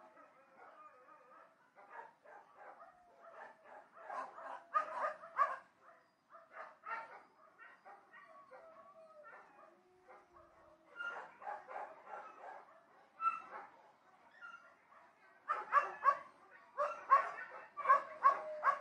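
Several dogs barking in the distance, in irregular flurries of short barks, with the loudest, densest barking near the end.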